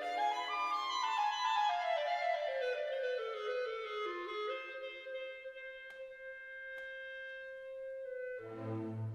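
Instrumental background music: a single melody line stepping down in pitch over a few seconds, then one long held note, with a fuller ensemble coming in near the end.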